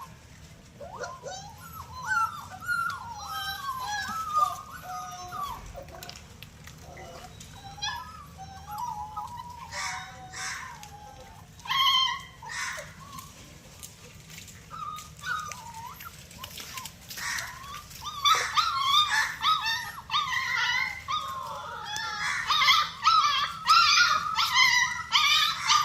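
A litter of puppies whimpering and squealing, with many short, high, wavering cries overlapping one another. A few short clicky sounds come in among them. The cries grow louder and busier about two-thirds of the way through.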